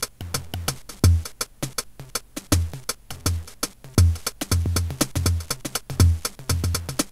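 DrumKid lo-fi aleatoric drum machine playing a glitchy electronic beat: low kick-drum thumps under rapid, crisp hi-hat-like ticks, as its tempo knob is turned by hand.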